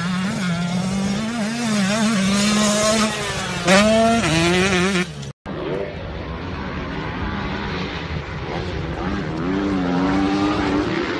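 Motocross dirt bike engines revving: one bike's engine note wavers up and down and climbs sharply about four seconds in, then after an abrupt cut a more distant bike revs up near the end.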